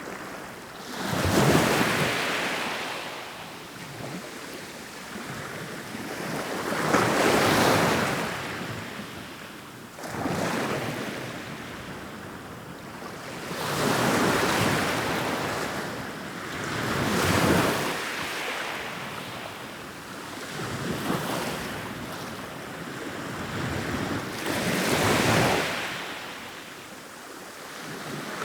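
Ocean waves rolling in and breaking, each one a rushing surge of surf that swells and falls away, about every three to six seconds.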